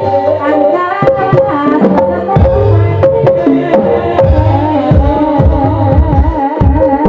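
Live Javanese gamelan music for an ebeg dance: kendang hand-drum strokes with deep thumps, over held metallophone tones and a wavering melody line.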